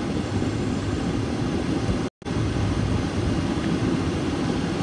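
Steady low rumbling background noise, broken by a split-second dropout to silence about two seconds in.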